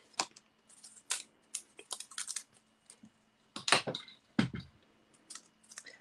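Die-cut cardstock pieces handled and set down on a tabletop: a scatter of light paper clicks and taps, with a heavier knock about four and a half seconds in.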